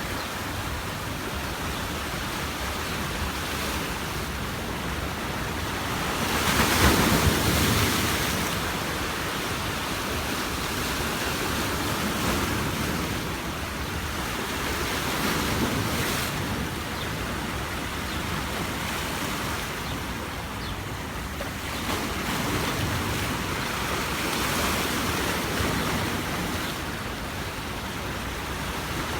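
Sea waves breaking and washing up on a beach, the surf swelling and falling away in turn, loudest about a quarter of the way in. Wind rumbles on the microphone underneath.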